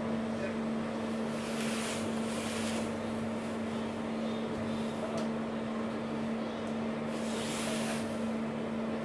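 Express passenger boat's engines running with a steady low hum under a constant rush of noise. A louder rushing hiss swells up twice, about a second and a half in and again about seven seconds in.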